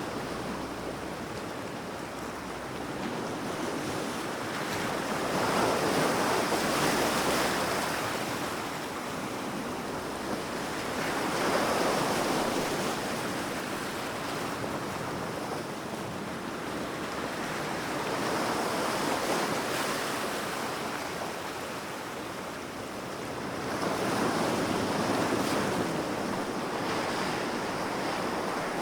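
Large ocean waves breaking on the shore, a continuous rushing surf that swells with each breaker about every five to six seconds, with some wind.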